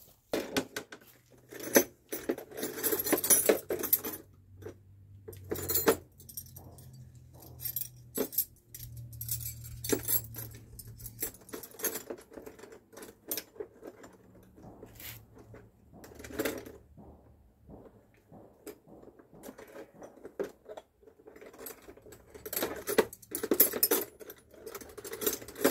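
Metal hand tools clinking and rattling in irregular clusters of sharp clicks and clanks: someone rummaging through tools for an 11 mm socket.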